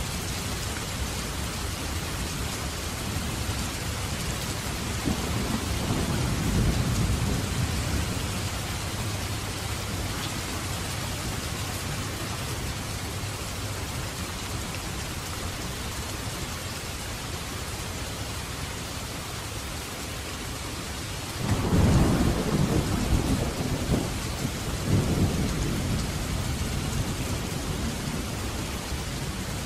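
Steady rain with rolls of thunder. A low rumble swells up about five seconds in and fades. A louder one breaks in suddenly about 21 seconds in, with a second swell a few seconds later, before dying back under the rain.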